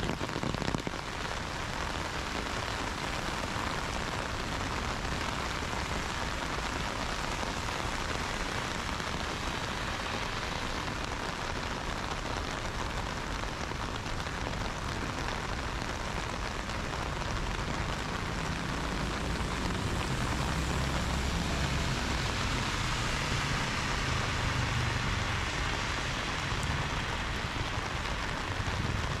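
Heavy rain falling steadily on a wet road and pavement, a dense even hiss. A low rumble swells in the second half.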